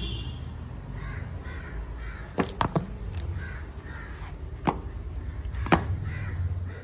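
Harsh bird calls repeating every second or so over a low steady rumble, with sharp clicks: three in quick succession about two and a half seconds in, then single ones about two and three seconds later.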